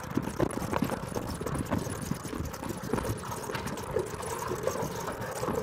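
Golf cart rattling and knocking as it drives over rough gravel ground: irregular knocks over a steady low rumble.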